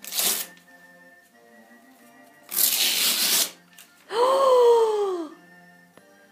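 Wrapping paper rustling and tearing in two bursts, a short one at the start and a louder one lasting about a second midway, then a drawn-out vocal 'ooh' that rises and falls in pitch. Faint background music runs underneath.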